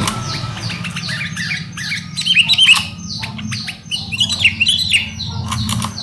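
Sooty-headed bulbuls (kutilang) calling: a rapid run of short, falling chirps with louder, harsher chattering calls about two and a half seconds in and again about four and a half seconds in.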